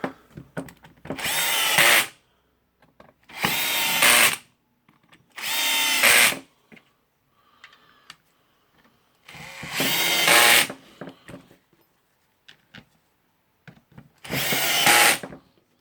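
A power screwdriver runs in five short bursts of about a second each, driving the screws that close the rotary hammer's housing.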